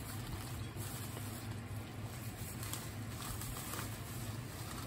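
A steady low hum, with a few faint knocks and rustles of someone rummaging through things in search of a tool.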